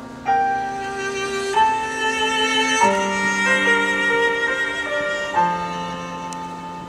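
Slow instrumental music, a violin playing long held notes over sustained chords that change every second or two.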